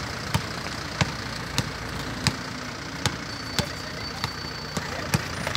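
A basketball being dribbled on a paved walkway, bouncing at an even walking pace of about one bounce every 0.6 seconds, around nine bounces in all, over a steady background hum.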